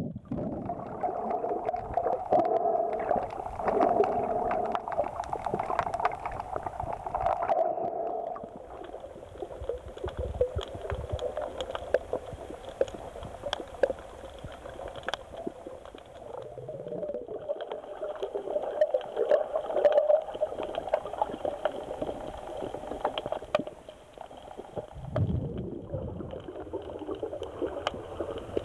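Underwater sound picked up by a compact camera while snorkeling over a reef: a muffled, wavering water rumble and gurgle, with scattered sharp clicks throughout. A brief louder low whoosh comes near the end.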